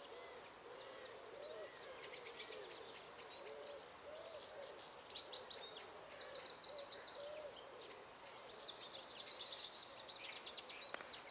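Songbirds singing in a dawn chorus: fast, dense, high twittering trills, with soft low hooting calls underneath.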